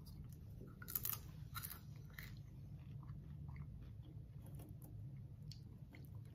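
A person chewing a mouthful of butter popcorn: faint crunches, with a few sharper ones between about one and two and a half seconds in.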